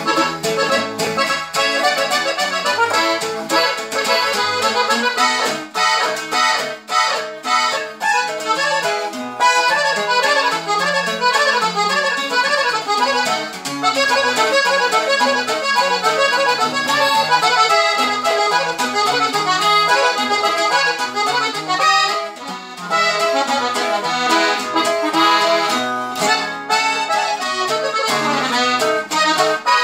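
Norteño music played live on a button accordion with acoustic guitar strumming along. The accordion carries the melody over a steady rhythm, with a brief drop in the music about two-thirds of the way through.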